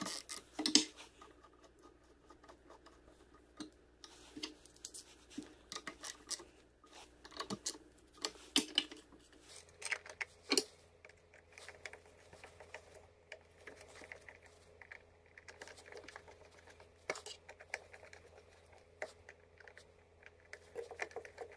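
Irregular small clicks and scrapes of a screwdriver and fingers working on an electric motor's plastic terminal box: tightening the wire terminals, then fitting the lid and turning its screws.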